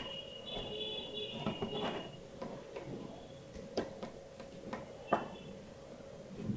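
Hands handling a Xiaomi Redmi Note 4 smartphone and its box: a few light, sharp clicks and soft rubbing as the phone is turned over and a SIM ejector pin is brought to the SIM tray slot. A faint steady hum runs underneath.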